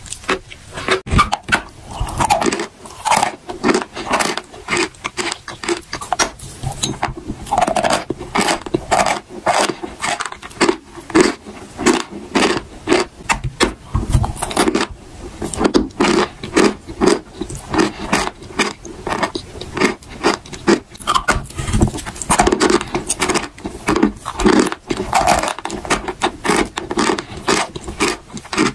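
Close-miked crunching of chalk bitten and chewed, dry chalk and chalk coated in wet paste: a dense run of crisp snaps and crackles, several a second.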